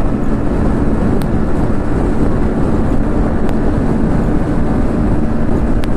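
Bajaj Pulsar NS160's single-cylinder engine running steadily at high revs near top speed, about 120 km/h, with wind rushing over the rider's microphone.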